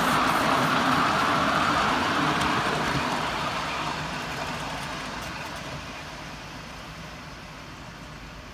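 Miniature 7¼-inch gauge locomotive and its passenger cars running on the track, a steady rumble and clatter that fades as the train moves away.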